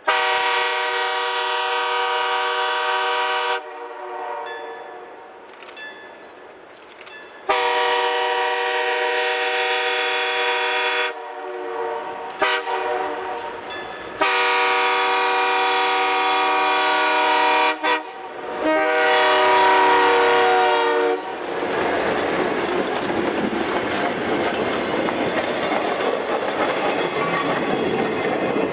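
Ex-CN FP9A diesel locomotive's air horn, sounding a chord in a series of long blasts with one short blast between them. The locomotive then passes close, its engine and its wheels on the rails making a loud rushing noise.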